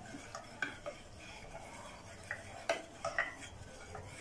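A spoon stirring a cornflour-and-water slurry in a bowl, with scattered light clicks and taps against the bowl as it is mixed smooth and lump-free.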